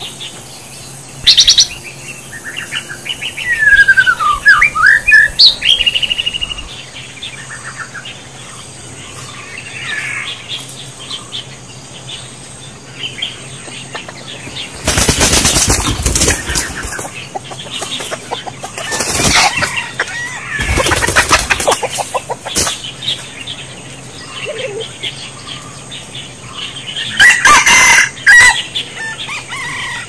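Wild chickens flapping their wings hard in several loud bursts, about fifteen seconds in, around twenty seconds in, and again near the end, with squawking calls mixed into the last burst. A few seconds in there is a run of short chirping calls.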